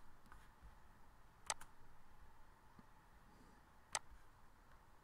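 Computer mouse clicks over faint room hiss: a quick pair about a second and a half in and a single click near four seconds.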